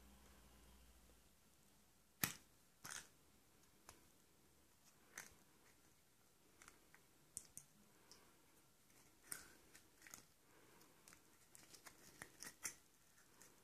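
Yellow plastic Kinder Surprise capsule snapping open with a sharp click, followed by scattered small plastic clicks and light rustling as the toy parts and a paper slip are taken out.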